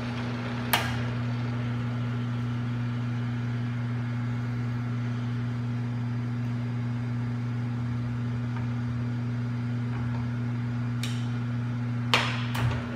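South Bend Heavy 10 metal lathe running under power, its motor and drive giving a steady hum. A sharp metallic click comes about a second in, and a couple of clunks near the end as the headstock is handled.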